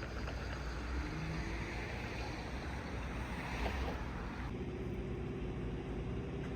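Vehicle noise: a steady low rumble, with a hiss that swells and fades in the middle. About four and a half seconds in, the background changes abruptly to a quieter hiss with a faint steady hum.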